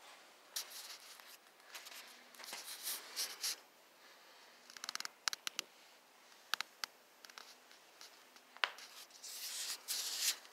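Scratchy rubbing and light clicking handling noise on a handheld camera's microphone as it is carried and moved about, in irregular clusters, loudest near the end as the camera is swung round.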